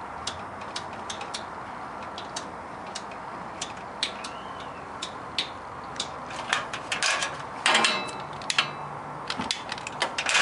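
Sharp irregular clicks from the oven's spark igniter as the gas pilot is being lit, over a steady hiss. The clicks come faster, with handling rustle, around seven to eight seconds in and again near the end.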